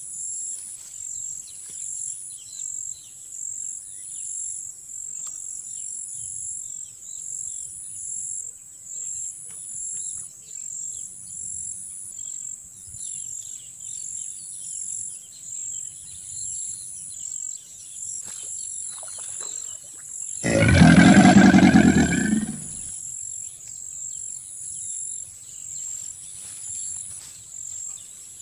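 A steady, pulsing high-pitched insect chorus, like crickets. About twenty seconds in, a loud, low call with a clear pitch cuts across it for about two seconds.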